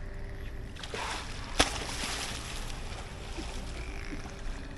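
A dolphin surfacing and exhaling through its blowhole: a sudden sharp puff about one and a half seconds in, trailing off into a short hiss, over steady pool water noise.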